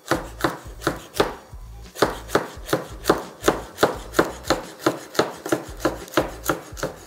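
Chef's knife finely dicing green sweet pepper on a wooden cutting board: steady knife strikes on the board, about three a second, with a brief pause about a second and a half in.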